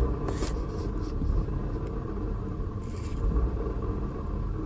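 Running engine of a 2000 Ford Taurus heard from inside the cabin as a steady low rumble, carrying a faint grinding noise through the dash. The owner traces the noise to a broken motor mount working metal to metal.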